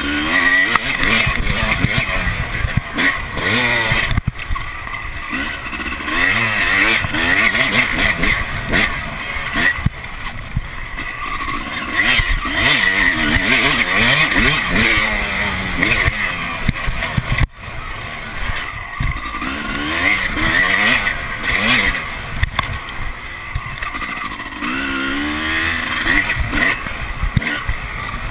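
Dirt bike engine revving up and dropping off again and again as the rider works the throttle along a rough trail, heard close from a chest-mounted camera with rushing noise and knocks over it. The engine briefly goes quiet about two-thirds of the way through.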